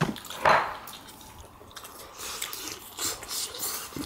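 Wet eating sounds over pork-bone potato soup: one loud slurp about half a second in, then soft scattered clicks.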